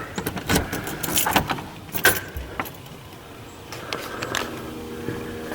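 Keys jangling and clicking as a door is unlocked and opened, a cluster of sharp rattles over the first couple of seconds, followed by a quieter steady hum.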